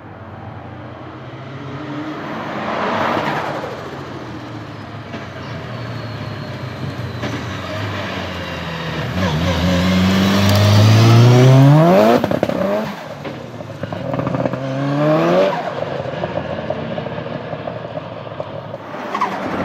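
Tuned 500+ hp Nissan 200SX engine revving hard twice, the pitch climbing steeply and then cutting off sharply as the throttle closes, the first rev longer and louder than the second.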